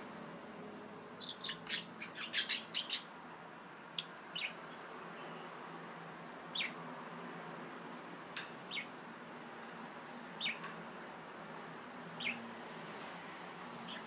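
Budgerigars chirping: a quick run of short, sharp chirps about a second in, then single chirps every second or two.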